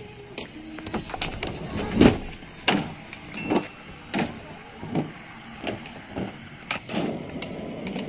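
Skate wheels rolling on a concrete skatepark, with a series of sharp knocks and clacks about once a second over the rolling rumble.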